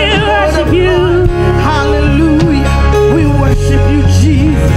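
Live gospel worship music: women's voices singing long held notes with wide vibrato over keyboard and a steady bass.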